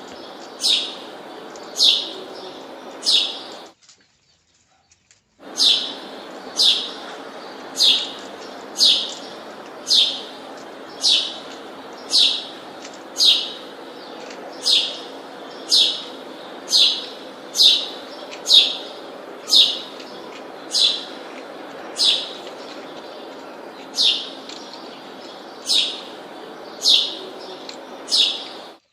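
A bird calling over and over, a sharp high chirp that falls in pitch, about once a second, over a steady low hum. The sound cuts out for a moment about four seconds in.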